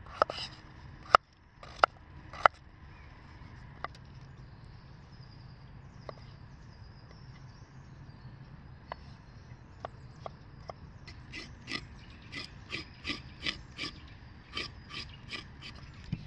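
Kitchen knife cutting vegetables on a wooden cutting board: a few separate sharp knocks, then near the end a steady run of chops, about three a second, as a carrot is sliced.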